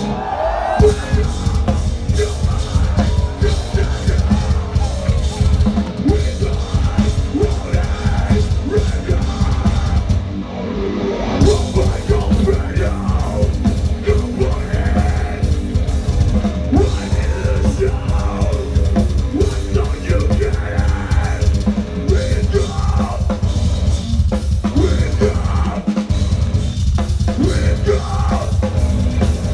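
Live metal band playing through a festival PA, heard from within the crowd: pounding drums and guitars with yelled vocals, with a brief break about ten seconds in.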